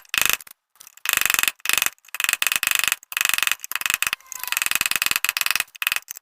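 Rapid mechanical rattling in a string of short bursts with brief pauses between them, each burst a fast run of clicks.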